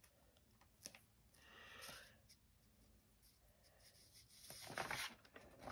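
Faint rustling and rubbing of paper as a narrow paper strip is worked through a slit in a sheet of paper, with a small click about a second in and a louder rustle near the end.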